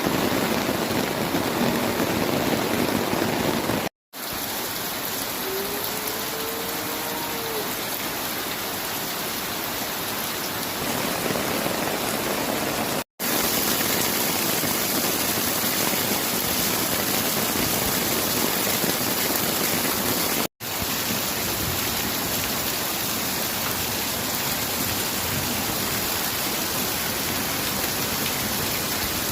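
Steady rain falling. The sound drops out abruptly for a split second three times.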